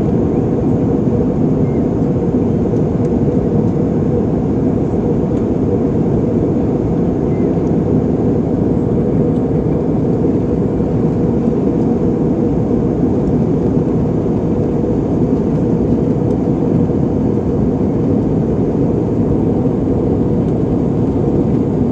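Steady, even noise of an airliner's engines and airflow heard inside the passenger cabin in flight, with no distinct thunderclap standing out.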